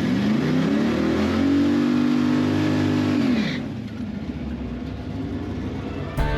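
Car engine revved up from low revs, held high for about a second and a half, then let fall back to idle and left idling.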